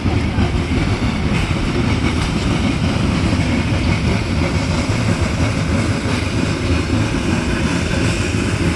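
Steady rumble and rattle of a narrow-gauge logging-railroad train in motion, heard from a car riding on it.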